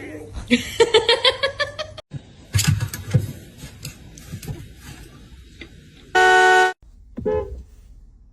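A jumble of short sounds from quick clips: pitched calls that break off suddenly, then knocks and clatter, then a loud horn-like honk of about half a second near the end, followed by one short pitched squawk.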